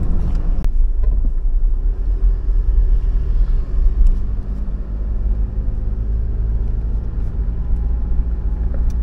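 Pickup truck (Chevrolet Colorado ZR2 Bison) driving over a rough dirt road: a heavy, uneven low rumble of tyres and suspension, with a sharp knock about half a second in and a steady engine hum coming through from about halfway.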